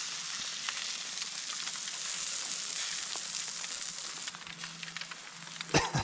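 Steak sizzling in a frying pan, a steady frying hiss that eases a little about four seconds in. A short laugh breaks in near the end.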